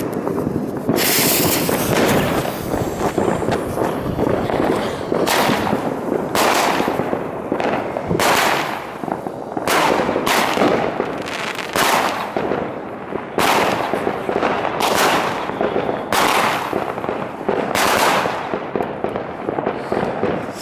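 The Grizzly Gold firework going off: a long series of loud bangs, about one every one to two seconds, over a continuous rushing noise.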